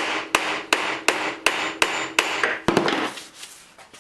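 Hammer striking the metal handle rod in a steady run of about eight blows, close to three a second, the metal ringing between blows; the hammering is to straighten the rod true. The blows stop about three seconds in and the ring fades.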